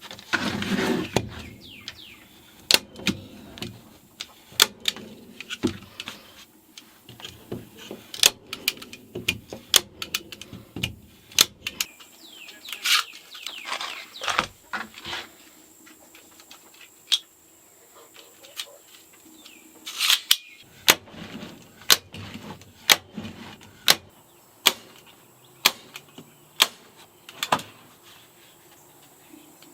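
A staple gun fastening vinyl sheet flooring down onto a plywood floor: sharp single clicks at uneven spacing, roughly one a second, with brief scuffing noises between some of the shots.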